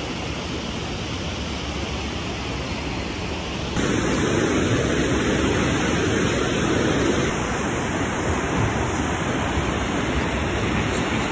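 Rushing mountain river tumbling over rocks and small rapids, a steady unbroken rush of water that gets louder about four seconds in.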